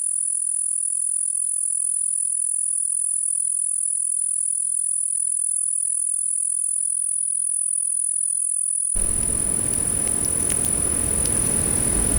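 Insects trilling in one steady, very high-pitched tone. About nine seconds in, a broad rushing noise with scattered light clicks joins in under it.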